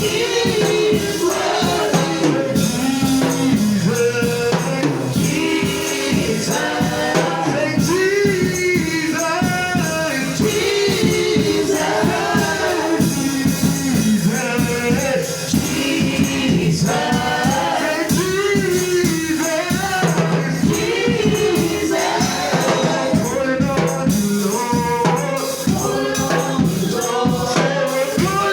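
Congregational gospel praise singing, voices carrying the melody over rattling hand percussion keeping a steady beat.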